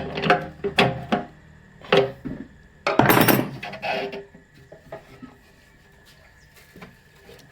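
Knocks and clicks of tools and metal parts being handled while a motorcycle petrol tap is fitted and tightened on the fuel tank, with one louder clatter about three seconds in; the rest is quiet.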